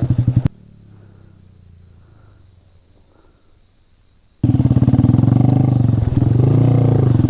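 Small 125cc single-cylinder motorcycle engine idling. It breaks off abruptly about half a second in, leaving a faint low hum for about four seconds, then comes back just as abruptly. A short rev rises and falls near the end.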